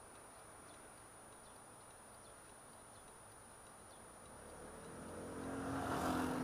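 A faint, steady traffic hum while standing still, then from about four and a half seconds in engines grow steadily louder as the Honda Dio scooter and the vehicles around it pull away from a standstill.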